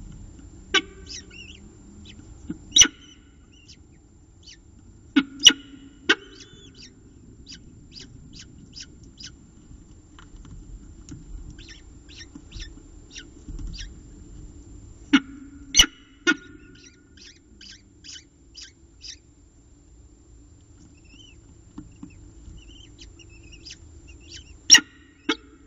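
Peregrine falcon feeding its eyases: a string of sharp clicks and snaps as the adult tears prey, mixed with short high chirps, several of them loud.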